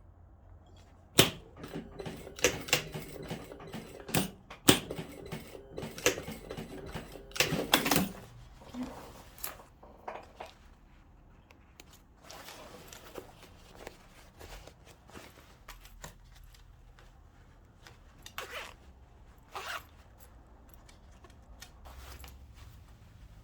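Sewing machine restitching a seam in short stop-start runs of rapid clacking, with sharp clicks between runs. It goes quieter after about eight seconds, leaving only occasional light clicks.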